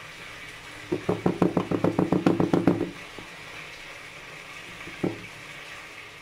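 Metal loaf pan full of cake batter tapped and jiggled against the counter: a rapid run of knocks, about ten a second for two seconds, then a single knock later on. The knocking settles the batter and drives out its air bubbles before baking.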